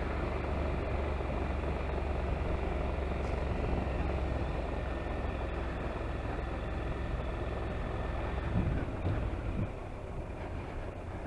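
A vehicle engine running steadily under a haze of wind and road noise. The low rumble eases about nine and a half seconds in.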